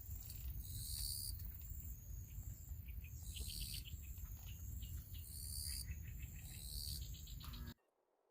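Night-time marsh wildlife calling: high-pitched buzzy calls repeating about every second and a half, mixed with short, rapid ticking trains, over a steady low rumble. The sound cuts off suddenly near the end.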